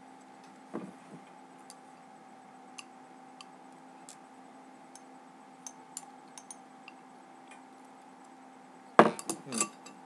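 Light, scattered clicks of chopsticks picking at food in a can, then a short cluster of loud knocks and clatter near the end. A faint, steady hum runs underneath.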